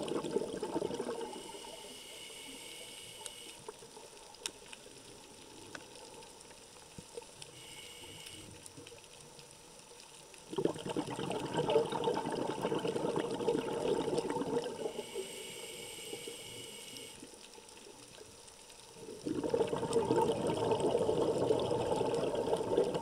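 Scuba diver's regulator breathing underwater: a hissing inhale through the regulator, then a long gurgling burst of exhaled bubbles, in a slow repeating cycle. The bubble bursts about ten seconds in and near the end are the loudest.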